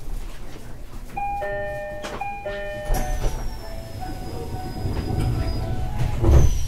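A two-note ding-dong chime sounds twice inside an SR1 series electric train. Then comes a low rumble with a faint high whine that falls slowly in pitch, and a loud thud just after six seconds.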